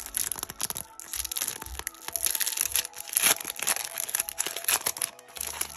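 Quick rustles and clicks of a stack of trading cards being slid and flipped through by hand, over faint background music.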